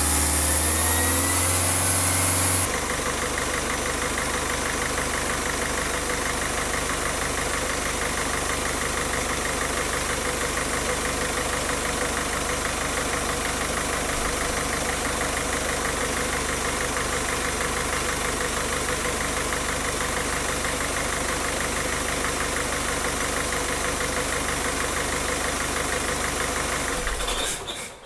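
Peugeot 407 diesel engine idling steadily with a light diesel clatter, its fuel circuit just reworked to cure an unsteady idle. Its sound changes about three seconds in, and the sound cuts off just before the end.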